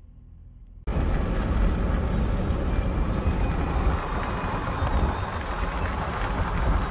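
Faint low cabin hum, then about a second in, a sudden switch to steady tyre and wind noise inside a vehicle cruising at highway speed.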